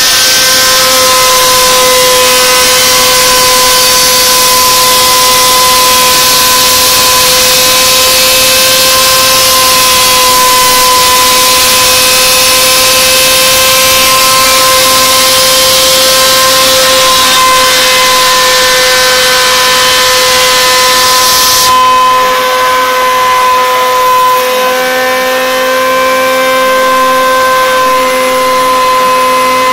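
CNC router spindle motor whining at a steady high pitch, with a loud hiss over it. The hiss cuts off suddenly about three-quarters of the way through while the whine runs on.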